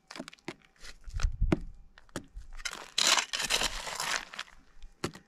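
Hand scraping and raking through loose quartz pebbles and red dirt, with crunching and sharp clicks of stones knocking together; the scraping is densest about three seconds in.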